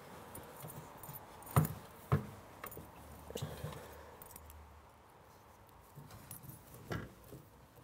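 A few sharp clicks and light rattles from a strap buckle and the aluminium bike carrier as the strap is fastened to the carrier frame, securing the folded-up carrier against the tailgate. The loudest clicks come about one and a half and two seconds in, with another near the end.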